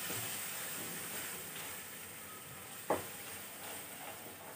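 Spatula stirring a thick masala paste with freshly added yogurt in a frying pan, the mixture sizzling softly; one sharp tap a little under three seconds in.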